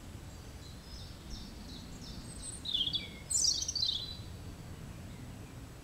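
A small bird singing: faint short chirps, then a louder run of quick falling notes from about two and a half to four seconds in. Under it is a low steady outdoor rumble.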